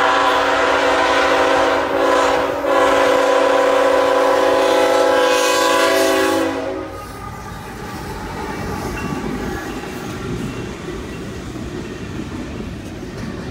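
CSX freight locomotive's air horn sounding for the grade crossing: a long chord blast, a brief dip about two seconds in, then a second long blast that cuts off at about six and a half seconds. After it the steady rumble of the train's wheels on the rails carries on as the double-stack cars pass the crossing.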